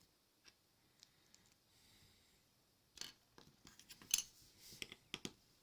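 Faint, irregular small clicks and plastic rubbing from Lego minifigure parts being handled and pressed together, with a cluster of sharper clicks in the second half.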